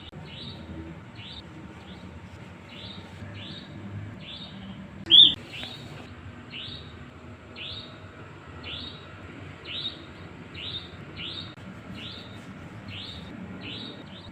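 Nightjar (burung cabak) calling: a steady series of short, sharp rising notes, about two a second. About five seconds in comes a single much louder, sharper note.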